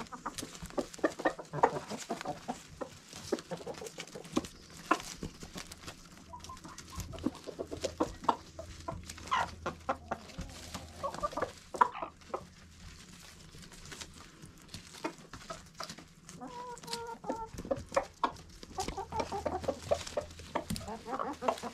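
A flock of hens clucking as they feed on a pile of fresh greens, with many quick sharp pecking clicks as they strike and tear at the leaves. There is one longer, drawn-out call about two-thirds of the way through.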